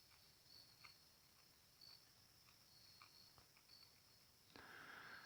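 Near silence: faint insects chirping steadily in short high repeated notes, with a soft brief rustle near the end.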